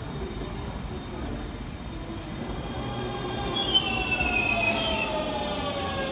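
Tobu 100 series Spacia limited express train slowing as it pulls into the station, over a low running rumble. From about three seconds in, a whine that falls in pitch comes up and grows louder as it brakes.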